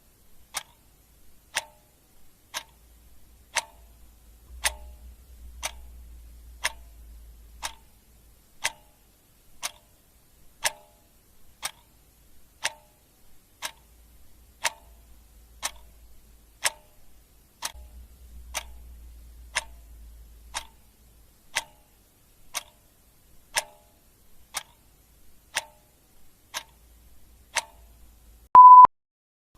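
Clock ticking sound effect, a sharp tick about once a second. Near the end comes a single short, loud electronic beep at one steady pitch.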